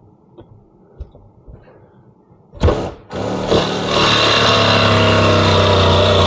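A cordless jigsaw cutting through a motorhome's roof skin to open the hole for a roof air conditioner. After a few faint handling clicks there is a brief burst about two and a half seconds in, then from about three seconds the saw runs steadily and loudly with an even, humming pitch.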